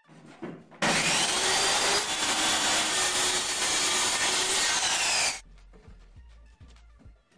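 Handheld circular saw cutting through a plywood sheet. The cut starts about a second in and stops abruptly about five seconds in.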